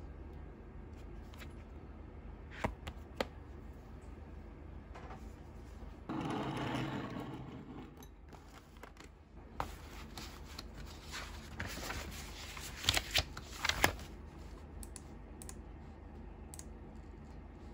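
Desk handling sounds: a tablet case and a fabric pencil pouch being moved about, with scattered clicks and taps, a rustling scrape lasting about two seconds a third of the way in, and a quick cluster of louder taps a few seconds before the end.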